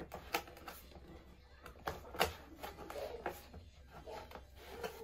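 Cardboard toy box and its packaged plastic toy cars being handled: a few light taps and clicks, with faint rustling between them.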